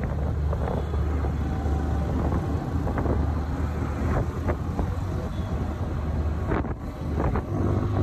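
Motorcycle engine running steadily on the move, with wind on the microphone and a few short knocks.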